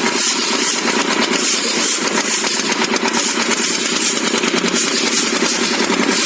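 A small motor running steadily with a fast, even buzz, typical of the motor driving a DIY model vehicle.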